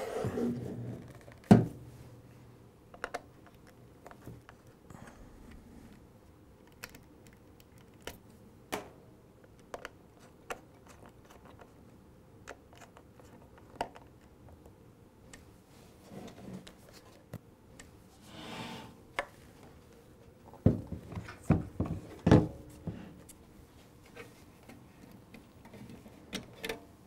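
Small clicks, taps and rustles of a screwdriver working speaker-wire terminals and of wires being handled, with a sharp knock about a second and a half in and a cluster of knocks about three quarters of the way through.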